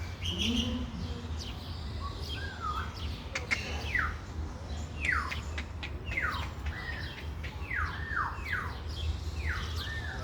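A bird calling repeatedly, a quick run of short calls that each slide downward in pitch, coming thicker in the second half, over a steady low background rumble.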